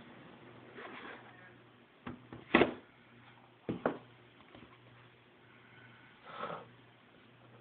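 A cardboard Samsung Galaxy S retail box being opened and handled: a soft rustle of the lid, then a few sharp knocks, loudest about two and a half seconds in and again near four seconds, as the box and lid are set down on the table, and another short rustle near the end.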